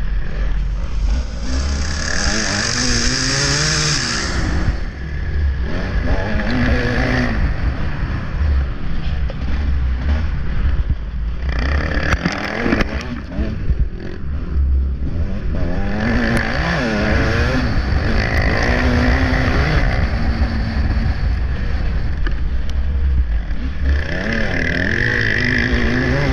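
Motocross bike engine heard from on board, revving up and falling back over and over as the throttle opens and closes through the corners.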